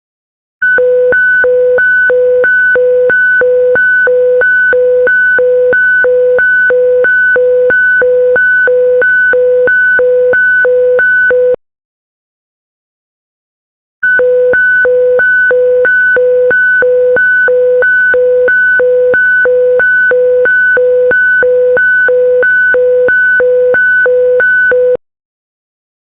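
Emergency alert alarm tone: an electronic tone alternating rapidly between a low and a high pitch, about two high-low cycles a second. It sounds in two bursts of about eleven seconds each, with a silent gap of a couple of seconds between them.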